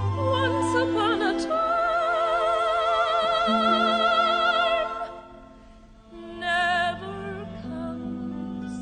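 A singer holds a long note with wide vibrato over orchestral accompaniment, closing a slow, tender ballad; the note dies away about five seconds in, followed by a short high phrase and soft sustained low chords from the orchestra.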